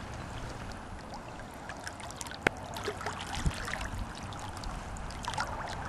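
Trout stream's current running through a fast chute, a steady even rush of water, with one sharp click about two and a half seconds in.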